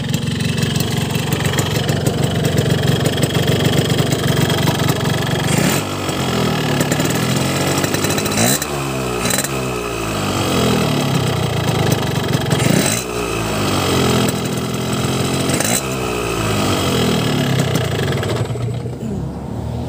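Warm two-stroke motorcycle engine, blowing through a Boban C33 aftermarket exhaust, idling, then blipped several times, each rev rising and falling back to idle. The engine sounds rough ("kasar") when warm on this oil at the standard setting.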